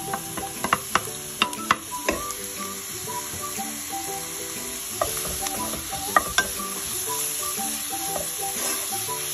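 Chopped onion, carrot and celery sizzling in olive oil in a pan while a wooden spoon stirs them, with sharp knocks of utensils against the pan, several in the first two seconds and a few more about five to six seconds in.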